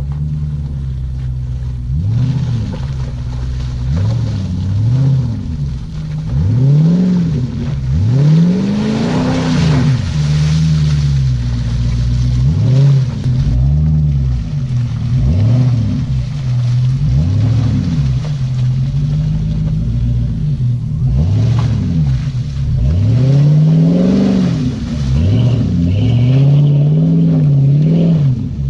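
Jeep Grand Cherokee 4.7-litre V8 through a Flowmaster exhaust, revved hard again and again, its pitch climbing and dropping many times over.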